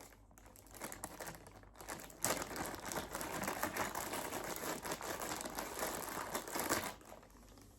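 Packaging crinkling and rustling while the tripod's bolts are unpacked, starting about two seconds in and stopping shortly before the end.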